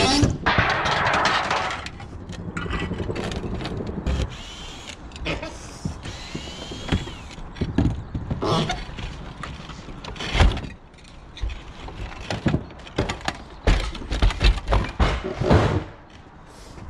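Roof tiles and debris being stripped off a roof: a long noisy clatter in the first two seconds, then a string of separate sharp knocks and clunks.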